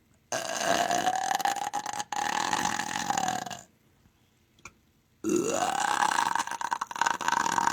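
Two long, drawn-out belches, each about three seconds long, with a short pause between them. The second starts low and rises in pitch before holding steady.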